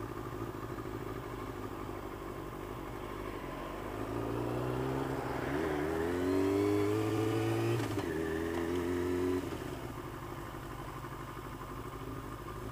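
2001 Yamaha R6 inline-four engine at low revs, then pulling away with its pitch rising and getting louder for about four seconds before easing off and settling back down about nine seconds in. Picked up by the rider's helmet Bluetooth audio pack.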